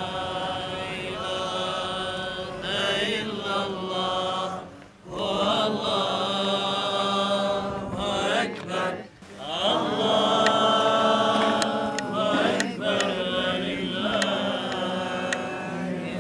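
A solo voice chanting long, drawn-out melodic phrases in the manner of Islamic religious recitation, breaking off briefly twice.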